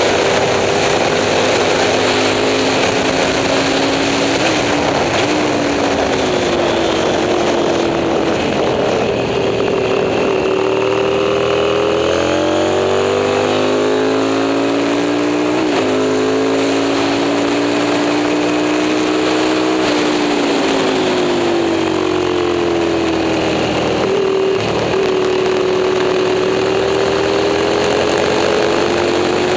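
Moto Morini 350 V-twin racing motorcycle under race load. Its engine note climbs as it accelerates and drops back as the throttle closes, with quick dips at gear changes about four, sixteen and twenty-five seconds in.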